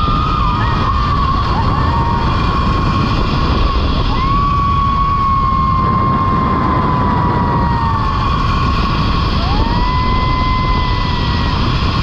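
Wind rushing hard over a handheld action camera's microphone during a fast zipline ride. Over it, long high held tones come in a few times, each sweeping up briefly and then slowly sliding down in pitch.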